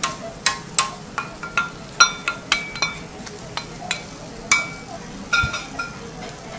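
Metal spatula tapping and scraping on a teppan iron griddle: about a dozen sharp, irregular clinks that ring briefly. Under them is the steady sizzle of cabbage-and-octopus batter cooking on the hot plate.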